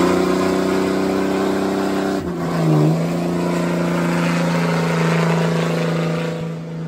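Lifted diesel pickup truck's engine held at high, steady revs during a burnout, with a brief dip and quick blip of the throttle about two seconds in, easing off near the end.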